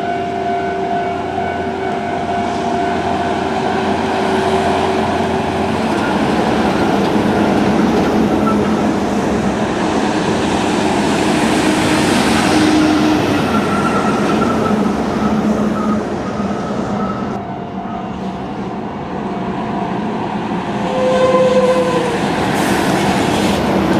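Heavy diesel tractor unit hauling two coupled trailers, passing over the crossing: engine drone and many tyres rolling. It is loudest around the middle, eases off, then builds again near the end.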